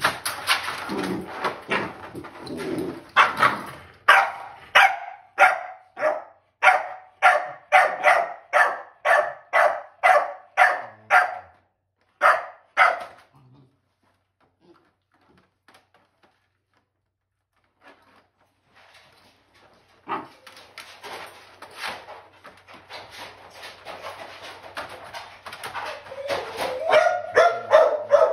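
Crated bulldog-type dog barking over and over, about two barks a second. The barking stops for several seconds around the middle, then starts again, quicker and louder toward the end.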